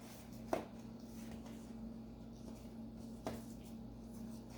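Two faint light taps from a cookie and its dish being handled, about half a second in and a little after three seconds, over a steady low hum.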